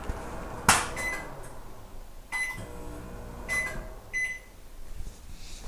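Microwave oven: a sharp click of the door, then four short electronic beeps, unevenly spaced.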